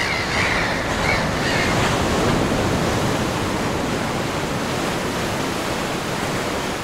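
Ocean surf washing steadily on a beach, with a few short gull cries in the first second and a half.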